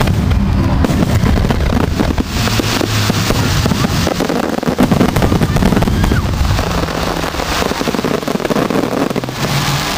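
Aerial fireworks display: a dense barrage of shells bursting, with rapid overlapping bangs and continuous crackling.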